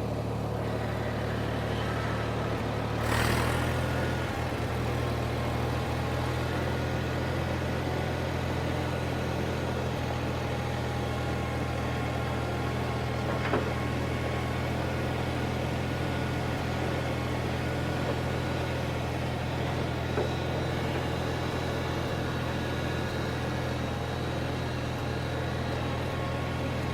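Old Ford farm tractor's gasoline engine running steadily on a freshly cleaned carburetor, a sign that the jets are clear and it holds its idle well. A brief louder burst of noise about three seconds in, and two sharp clicks later on.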